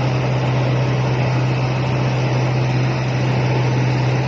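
Rice combine harvester running steadily, a loud constant machine drone with a low hum that holds the same pitch throughout.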